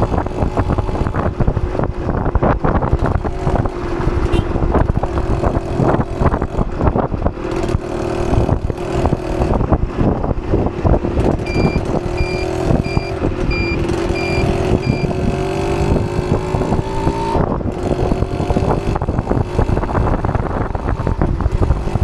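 2001 Suzuki TS 125 ER's two-stroke single with an FRC aftermarket exhaust, running under way. Its note climbs as it revs out and drops suddenly about seventeen seconds in, with wind buffeting the microphone. A run of short high beeps, about two a second, sounds for a few seconds around the middle.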